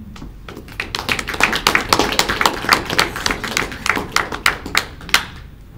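A small group of people clapping, each clap distinct, starting about half a second in, quickly filling out, and stopping just after five seconds.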